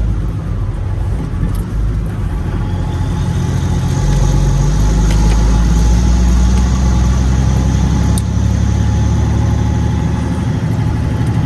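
Peterbilt semi truck's diesel engine pulling at low speed, a steady low rumble heard from inside the cab with the windows down, growing louder from about four seconds in as it works harder.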